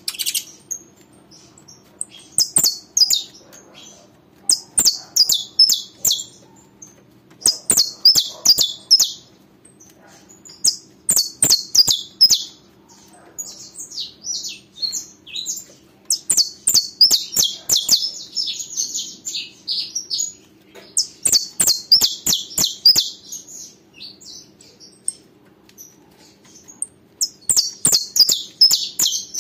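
Caged saffron finch (canário-da-terra) singing: about seven phrases of quick, high chirping notes, each a second or two long, with pauses of a few seconds between them. Sharp clicks are scattered through the song over a faint steady hum.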